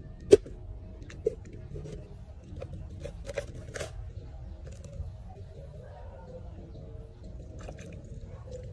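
Fresh green coconut husk being pried and torn apart by hand, with crunching and cracking, mostly a few seconds in. A sharp knock about a third of a second in is the loudest sound, with a smaller one about a second later.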